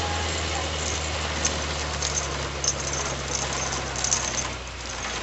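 Pinzgauer off-road truck's engine running steadily at low revs as it ploughs through deep snow, with scattered light rattles and clicks. The engine hum fades about four and a half seconds in.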